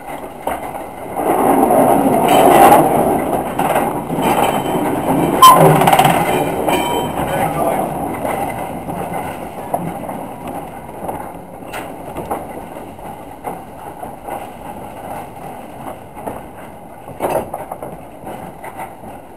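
Small steam locomotive running slowly, heard from its footplate. A loud rush of noise from the engine builds about a second in and eases off after several seconds into quieter running, with a few sharp clanks later on.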